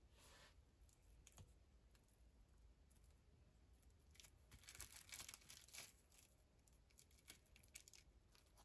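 Faint crinkling of plastic wrap and light clicks as a small metal star cookie cutter is pressed and lifted through iced cookie dough, busiest about halfway through.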